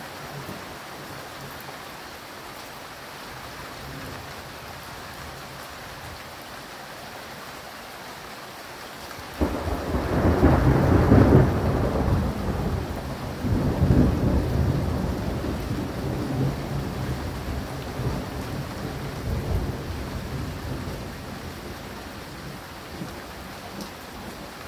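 Steady rain, then about nine seconds in a thunderclap starts suddenly and rolls on as long rumbling thunder with a second swell a few seconds later, fading away over about ten seconds.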